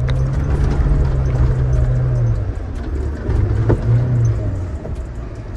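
Off-road 4x4's engine running, heard from inside the cabin as a steady low drone that eases off about two and a half seconds in, swells again briefly and then dies down, with a couple of sharp knocks.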